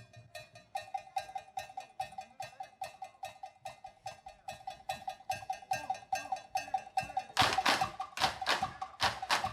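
Candombe percussion: a fast, even run of sharp stick strikes, each with a ringing tone, joined by louder, heavier strikes about seven and a half seconds in.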